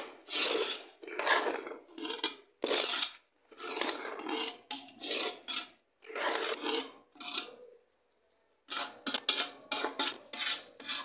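Slotted metal spoon scraping and stirring cooked cabbage, potato and peas in a metal pot: a run of rasping strokes about half a second each, with a short pause past the middle and quicker, shorter strokes after it.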